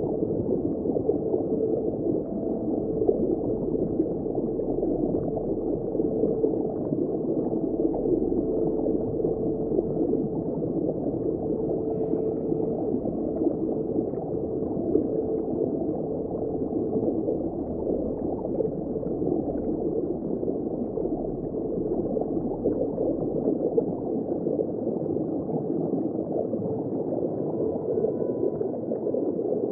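Underwater ambience: a steady, muffled rush of seawater as heard from below the surface, dull, with nothing high-pitched in it.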